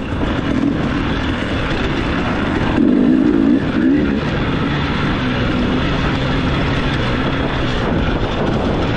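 Dirt bike engine running under load through a hare scramble course, its pitch wavering with the throttle, louder for a moment about three seconds in.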